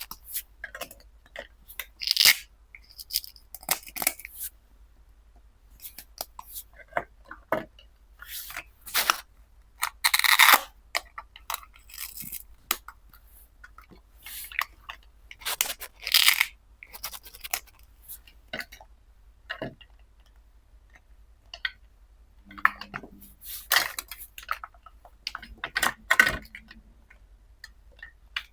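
Plastic toy kitchen pieces being handled: irregular clicks, clacks and short rustling or tearing noises.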